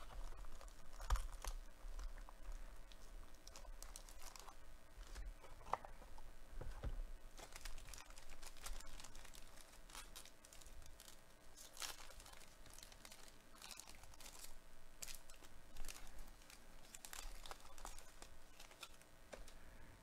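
Sealed foil trading-card pack crinkling and tearing as it is lifted out of its cardboard box and ripped open by hand, with a string of scattered crackles and clicks.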